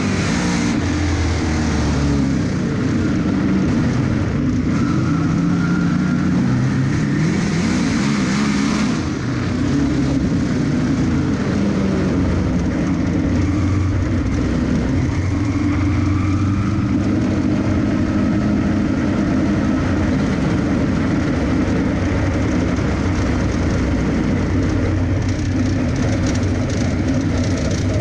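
Dirt-track race car's engine heard from inside the cockpit at racing speed, its pitch rising and falling as the car accelerates and backs off through the turns, slowing down near the end.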